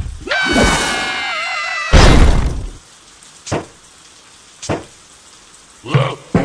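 Cartoon sound effects: a larva character's high, wavering cry, then a heavy thunk about two seconds in. After that, a quiet stretch with two single drip-like taps.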